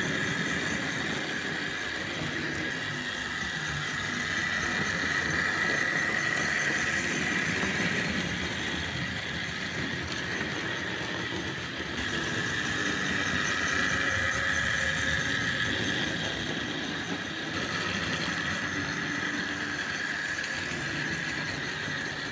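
Tri-ang R.153 saddle tank model locomotive running with a short train of goods wagons: its electric motor and wheels give a steady high whine over the rattle of the train on the track, growing and easing slightly as it goes.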